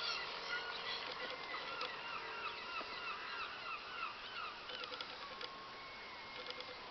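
Many birds calling in short, rapidly repeated arching calls, with a faint steady whine underneath.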